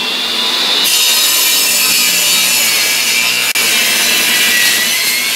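Table saw running and cutting through a wooden strip to free plugs made with a plug cutter. A steady high whine with cutting noise; the pitch sags a little under the load of the cut and comes back up near the end, with one brief drop in level about three and a half seconds in.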